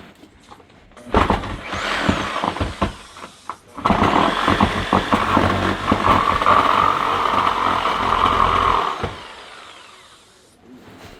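Power saw cutting through garage timber in two runs, a short cut and then a longer one, the motor winding down near the end.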